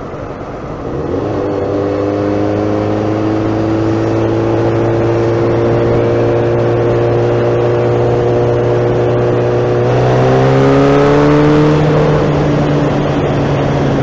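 Honda CBR600 F2's inline-four engine pulling steadily under way, its pitch climbing slowly, rising faster around ten seconds in and falling again near the end, over steady wind and road noise.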